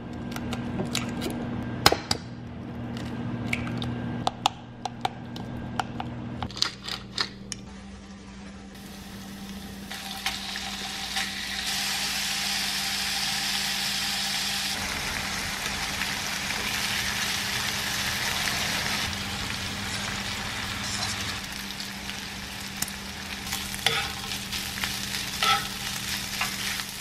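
First sharp clicks and taps as an egg is cracked into a bowl of rice and stirred in. Then, from about eight seconds in, bacon and green onion sizzle in a nonstick frying pan, and egg-coated rice is stir-fried with chopsticks and a spoon tapping and scraping in the pan.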